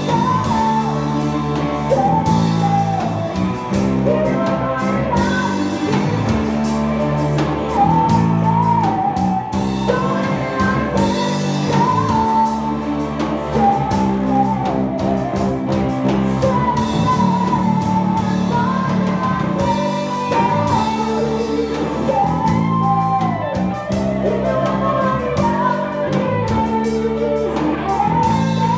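Live band playing rock music: guitar with a singing voice over a steady bass and beat, without a break.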